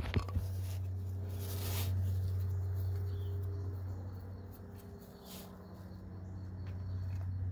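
Steady low hum from an unseen source. A few faint clicks and rustles of handling come right at the start, as wires and crimping pliers are moved into place.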